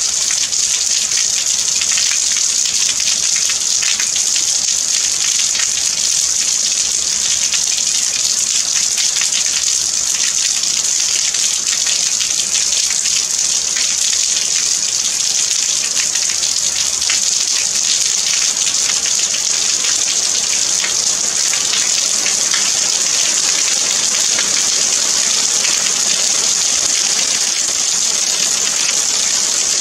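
Steady rainfall: an even, high hiss of countless drops with faint ticks of single drops through it, unchanging throughout.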